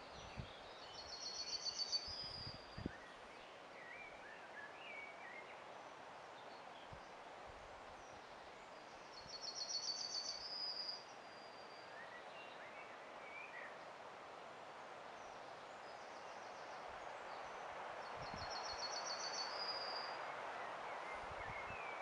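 A small songbird singing a short, fast trill that ends in a drawn-out note, repeated three times about nine seconds apart, with fainter chirps in between, over a steady hiss that grows a little louder near the end.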